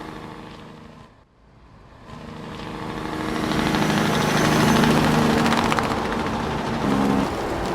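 A large farm machine's engine running: after a brief dip about a second in, it grows steadily louder over the next few seconds as it comes closer, then runs on evenly.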